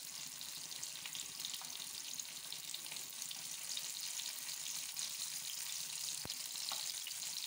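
Masala-coated seela fish (barracuda) shallow-frying in hot oil in a pan, the oil sizzling steadily with fine crackling bubbles.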